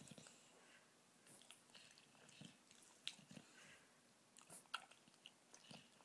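Faint mouth and breathing noises of a sleeping dog: scattered soft clicks, like lip smacking, and a few short low snuffles at irregular intervals.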